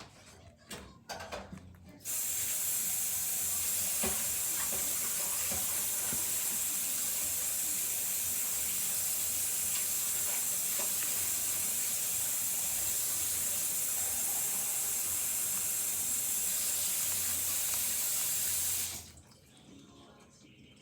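Water running steadily from a tap, turned on about two seconds in and shut off about two seconds before the end, after a few light knocks.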